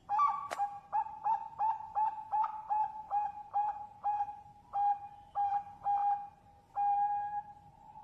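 Zebra dove (perkutut bangkok) cooing: a quick series of about a dozen short, clear notes, roughly three a second, ending in a longer held note. A sharp click sounds once about half a second in.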